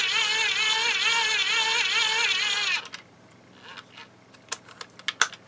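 Hand-crank dynamo of an emergency radio-flashlight multi-tool being cranked to charge a phone: a buzzing whine that wavers in pitch with each turn of the handle. It stops suddenly about three seconds in, followed by a few light clicks.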